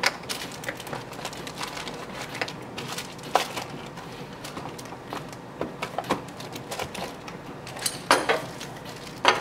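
Plastic-bagged cables and accessories rustling and crinkling as they are packed back into the compartments of a cardboard box, with scattered clicks and knocks; sharper knocks come about three seconds in and near the end.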